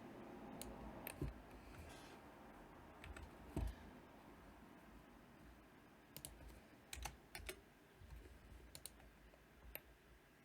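Computer mouse and keyboard clicks, about a dozen short clicks at irregular intervals, over a faint low hum.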